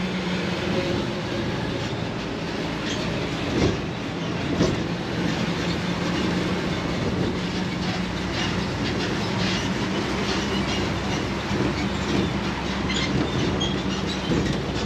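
Open-air parking lot tram under way: a steady hum from the tow vehicle over road noise, with the cars rattling and two louder knocks about a second apart a few seconds in.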